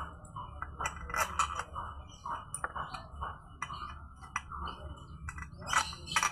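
Irregular metallic clinks and ticks of hand tools and bolts on motorcycle engine parts during assembly, with two louder clusters of knocks, about a second in and near the end, over a steady low hum.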